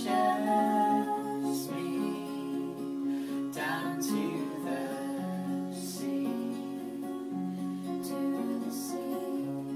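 Two acoustic guitars, one steel-string and one nylon-string, played together as a folk song, with a voice singing at moments.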